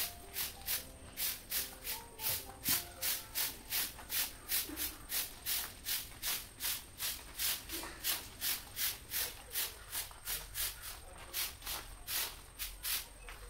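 Stiff stick broom sweeping leaves across a gravel yard, in brisk, evenly spaced scratching strokes about three a second.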